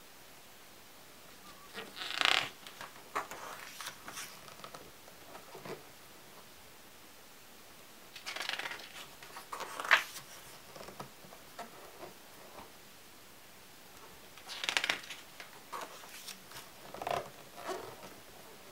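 Pages of a hardcover photo album turned by hand three times, each turn a brief papery swish followed by a few smaller rustles and taps as the page settles.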